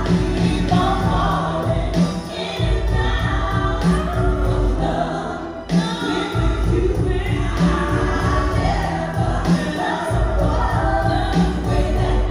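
Dance backing music: a song with singing over a heavy bass.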